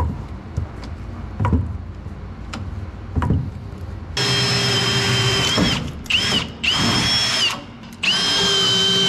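A few knocks on wood, then a cordless drill runs four times in quick succession, a steady high motor whine that sags in pitch as some runs end, boring or driving into wood overhead.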